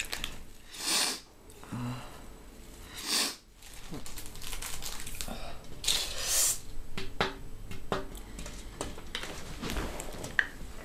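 Three short, loud rushes of breath through the nose, then a run of small sharp clicks and scrapes as a card taps on a glass tabletop, chopping white powder into lines.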